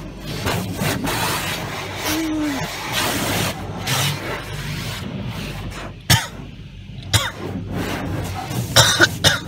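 Car being hand-washed, heard from inside the car: water and washing rush over the side window glass in a steady hiss for about six seconds. After that it is quieter, broken by a few sharp knocks near the end.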